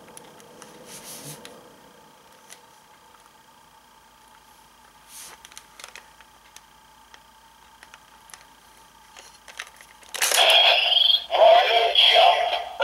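Small plastic clicks as the Hopper Zecter toy is handled and fitted onto its transformation belt. About ten seconds in, the belt's built-in speaker starts playing loud electronic transformation sound effects with a synthetic, voice-like call.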